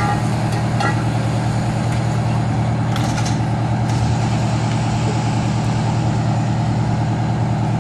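Fire truck's engine running steadily, a loud, even low hum, with a few faint clicks over it.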